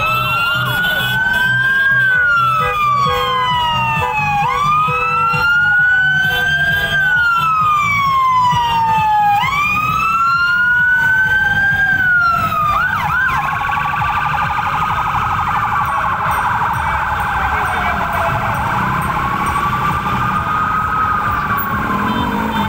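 Siren wailing, each cycle rising quickly and falling slowly, about every two and a half seconds. About halfway through it gives a brief quick warble, then goes on in slower, longer rise-and-fall cycles. A steady low rumble runs beneath it.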